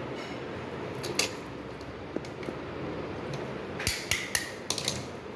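Sharp metallic clicks and taps of lock parts being handled and worked: a couple of single clicks, then a quick run of clicks near the end, over a steady low background hum.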